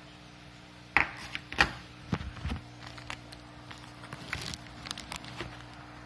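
Handling noise: two sharp knocks about a second and a second and a half in, then scattered small clicks and plastic crinkling as a charger cable and plastic bag are moved about on a countertop, over a faint steady hum.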